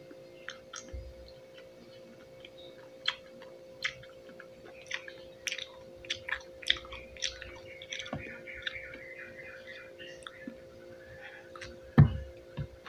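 Close-miked chewing of juicy pineapple pieces: irregular wet, crisp crackles and smacks as the fruit is bitten and chewed. A single louder knock sounds near the end.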